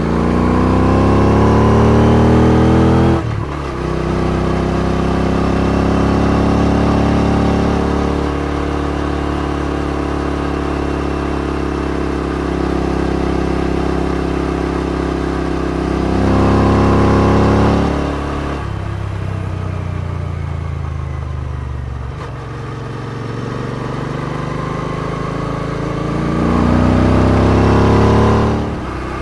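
Royal Enfield Interceptor 650's parallel-twin engine running through aftermarket exhausts, revving up and shifting gear about three seconds in. It holds a steady pull, then revs up again, and the revs fall away as the throttle closes. It then pulls up through the revs once more and shifts near the end.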